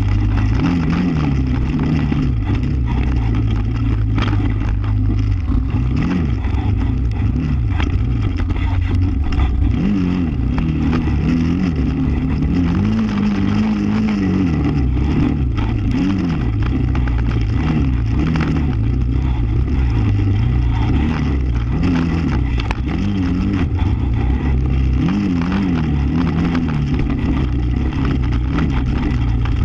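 ATV engine running close up while riding, its pitch rising and falling as the throttle opens and closes.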